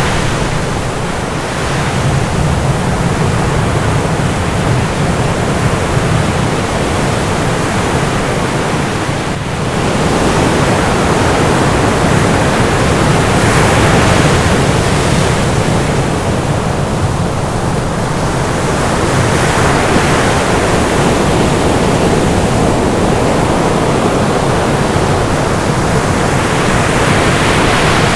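Loud, continuous rushing noise of ocean surf, swelling and easing every few seconds.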